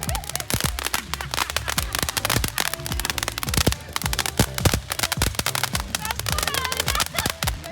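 Dense, irregular crackling and popping of fireworks, many sharp cracks a second, over background music with a steady bass.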